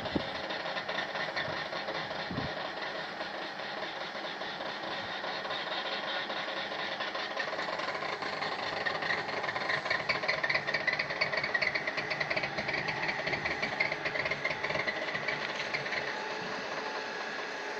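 Screw-extrusion briquetting machine running, pressing coffee husk into briquettes with a steady mechanical grinding rattle. From about halfway through until near the end, while husk is tipped into the hopper, the grinding gets louder and scratchier.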